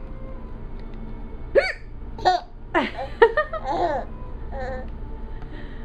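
A woman hiccups once about a second and a half in, and a baby answers with a run of short laughs over the next few seconds. A steady background hum runs underneath.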